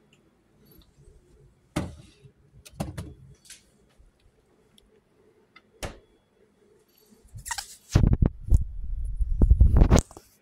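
Kitchen handling sounds: a plastic tub knocked onto a refrigerator shelf with a few sharp clicks, then the fridge door pushed shut, followed by a loud rumbling, rustling stretch near the end.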